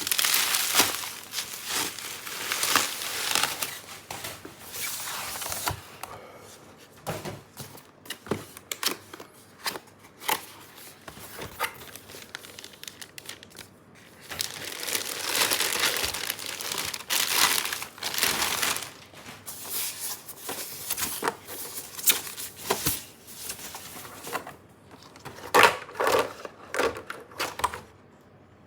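Plastic packaging crinkling and tearing, in two long spells of rustling with quieter handling between, and a few sharp knocks near the end.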